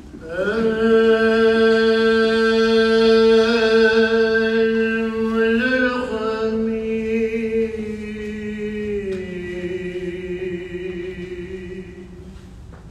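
A man's solo voice chanting a Jewish liturgical prayer in one long held note. About eight seconds in it slides down to a lower held note, which fades near the end.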